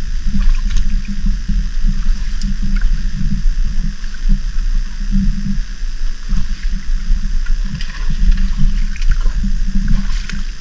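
Shallow seawater sloshing and splashing in uneven surges as someone wades slowly through it, with a few small clicks.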